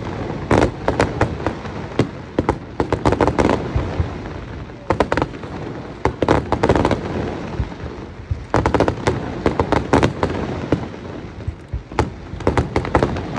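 Aerial fireworks going off in about six volleys of rapid sharp bangs and crackles, each volley lasting a second or so, with short lulls between them.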